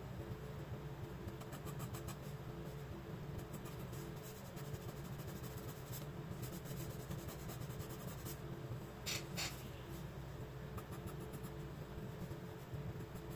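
Graphite pencil scratching across sketchbook paper in many short, light strokes, with two stronger strokes about nine seconds in, over a steady low hum.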